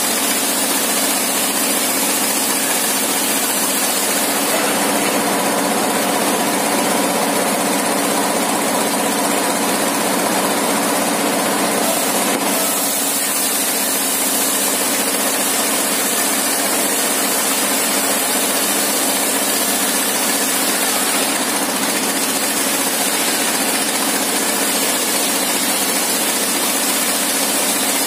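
Engine-driven 60-inch circular sawmill running steadily while its blade rips a long plank into a thin board: a constant engine drone, with a brighter cutting sound from about five to twelve seconds in.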